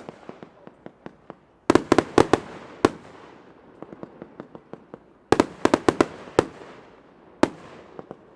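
Fireworks display: a volley of sharp shell bursts about two seconds in, another volley a little past five seconds, and a single bang near the end, with lighter pops and crackle in between.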